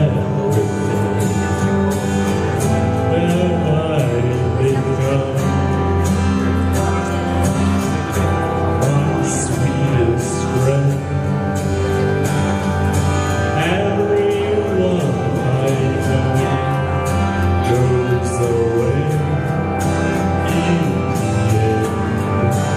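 Male vocalist singing a song into a microphone over instrumental accompaniment with a steady beat.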